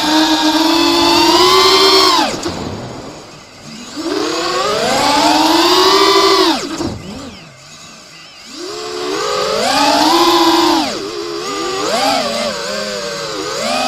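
FPV quadcopter's brushless motors and propellers whining, the pitch rising and falling with the throttle. The throttle drops away twice, a couple of seconds in and again around seven seconds, then surges back up.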